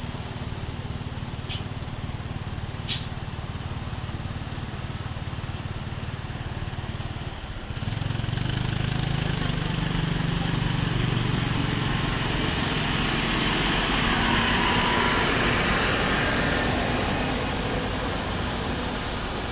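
A road vehicle's engine running steadily, with two sharp clicks in the first few seconds. About eight seconds in, the engine noise gets louder, and the rushing noise of a vehicle going past swells to a peak and then fades.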